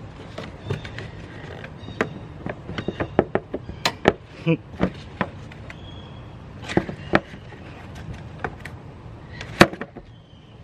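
Irregular sharp plastic clicks and knocks as a Jeep Renegade's plastic engine cover is worked loose from a stuck mount and lifted off. A few louder knocks come around the middle and one near the end.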